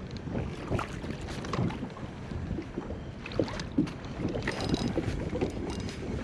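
Water lapping and splashing against a kayak's hull as it moves through a light chop, with wind buffeting the microphone and scattered small knocks.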